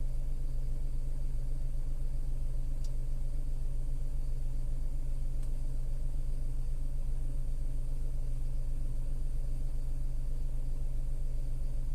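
Tata Altroz's naturally aspirated 1.2-litre three-cylinder petrol engine idling steadily when warm, heard from inside the cabin as a low, even hum.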